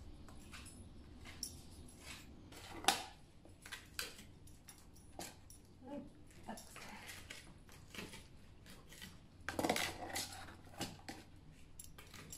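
Hand scraper working over old plaster and stone at a hearth: a run of short scrapes and clicks, with a sharp knock about three seconds in and a louder spell of scraping about ten seconds in.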